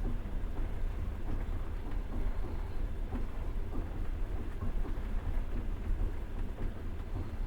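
Passenger train running along the track, heard from inside the carriage: a steady low rumble of wheels on rails with a rough rattling clatter over it.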